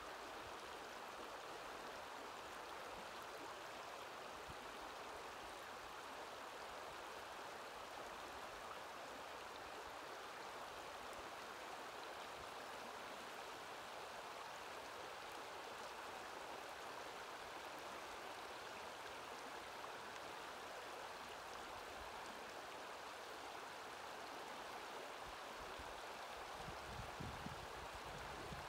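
Shallow river water running over a bed of rounded cobbles: a steady, even babble. A few low rumbles come in near the end.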